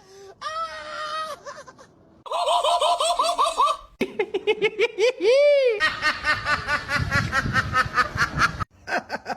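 People laughing in a string of short clips, rhythmic high-pitched 'ha-ha' laughs that cut off abruptly as each clip ends and the next begins.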